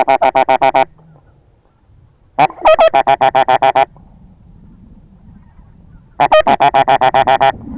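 Goose honking in three bursts of rapid, evenly spaced honks, about ten a second, each burst lasting a second or so, about three seconds apart.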